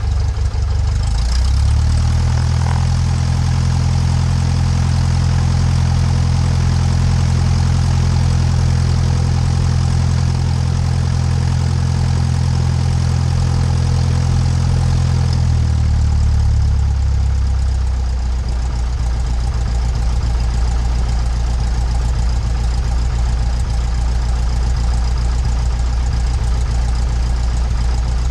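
Cessna 172 Skyhawk's piston engine and propeller running at taxi power, heard up close from outside the airframe. The engine speed rises a step about a second and a half in, holds steady, then drops back to a lower idle about sixteen seconds in.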